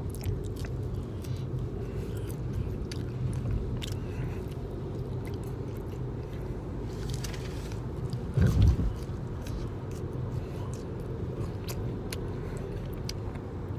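A person chewing crispy french fries, with soft crunches and mouth sounds over the steady low road rumble inside a moving car's cabin. A brief, louder low thump comes about eight and a half seconds in.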